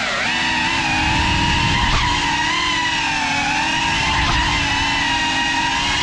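GEPRC Cinelog35 ducted cinewhoop drone's motors and propellers whining in flight, recorded from a camera mounted on it. The pitch stays fairly steady, with brief rises about two seconds in and again a little past four seconds as the throttle changes.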